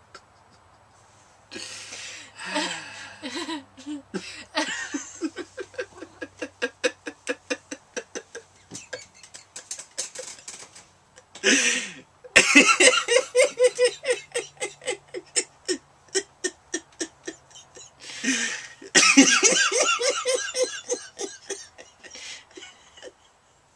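A couple laughing uncontrollably in long runs of rapid, rhythmic pulses, broken twice by a loud, breathy gasp, about halfway through and again near the end.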